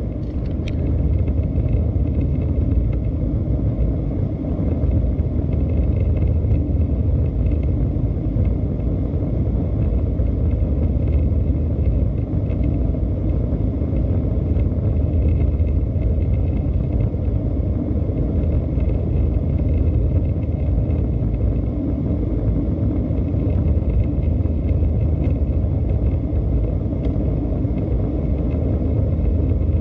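Steady low rumble of an Airbus A320-214's CFM56 engines and airframe, heard from inside the cabin, holding an even level throughout.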